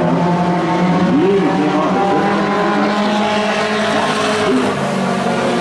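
A pack of Pro 4 racing trucks running together around an oval track, several engines sounding at once, their pitches sliding up and down as the trucks pass and work through the corner.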